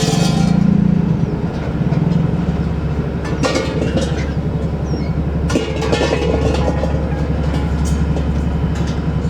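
A heavy engine running steadily with a fast, even throb, with a few short bursts of clatter or noise over it.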